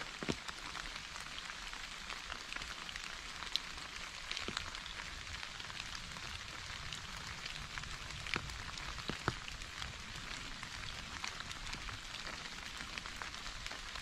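Rain falling on a surface: a steady patter with scattered louder drops.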